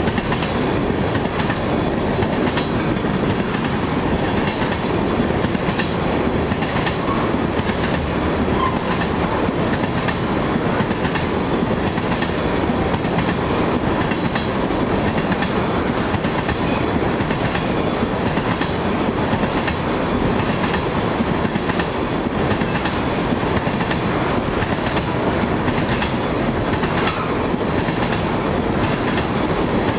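Freight train cars rolling steadily past at close range, a continuous rumble of wheels on rail.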